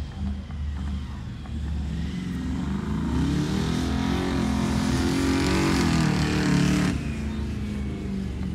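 Old pickup truck's engine revving hard as it drives past close by, the pitch rising then falling; it cuts off suddenly near the end. A steady low engine rumble underlies it throughout.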